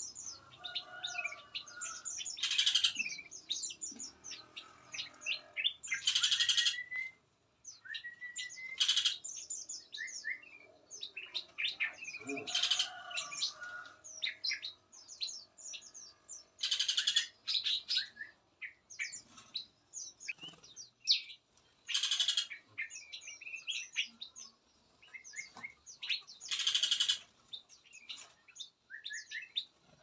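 Mixed songbirds of several species chirping and singing over one another without pause, with about six short, loud, noisy calls standing out every few seconds.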